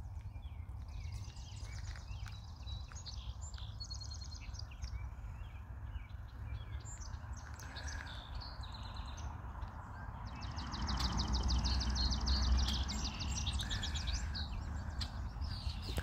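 Small songbirds singing high, rapid trills, a short run about a second in and a longer one from about two-thirds of the way through, over a low rumble of wind on the microphone that grows louder at the same time.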